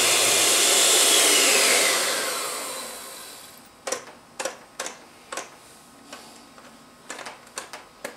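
Electric hand mixer with spiral dough hooks running at speed through a thin quark-and-egg batter, then switched off and winding down with a falling whine between about one and three seconds in. After it stops, a few short sharp clinks and knocks.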